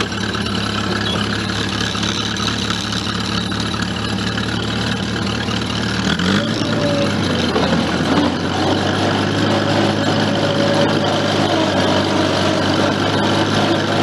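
International Harvester Cub Lo Boy tractor engine running steadily while plowing snow, then speeding up about six seconds in and running a little louder at the higher speed.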